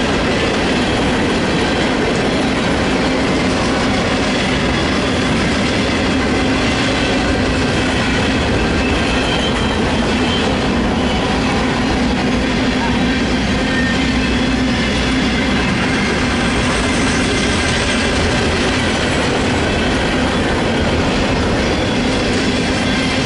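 Union Pacific manifest freight train's cars rolling past at a steady speed, a loud, continuous rumble of steel wheels on rail.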